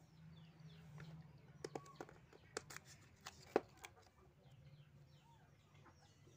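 A handful of sharp clicks and taps from a small plastic accessory packet being handled on a tabletop, the loudest about three and a half seconds in, over faint chirping of small birds.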